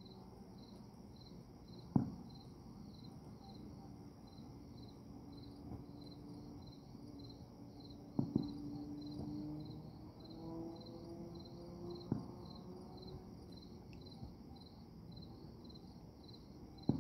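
Distant fireworks going off in single dull bangs, about two, eight and twelve seconds in and again near the end, over crickets chirping in a steady, even rhythm.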